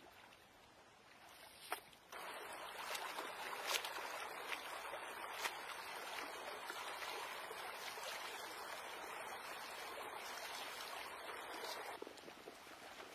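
Shallow river water running and splashing close by, with a few sharper splashes from hands in the water. The water sound starts suddenly about two seconds in and drops away near the end.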